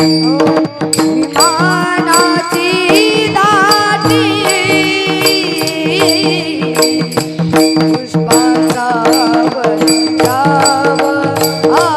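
Marathi devotional bhajan: a boy's voice holding long, wavering melismatic sung phrases without clear words, over a steady drone, with drum and cymbal strokes keeping the beat.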